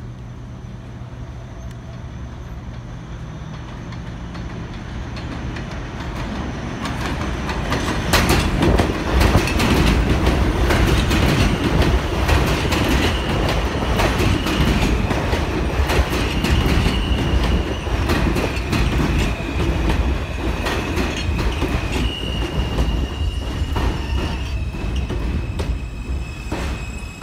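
R160A-1 New York City subway train approaching on elevated track and passing close alongside the platform. It grows louder over the first several seconds, and its wheels clatter over rail joints. From about halfway in, the wheels give a steady high squeal that shifts pitch once near the end.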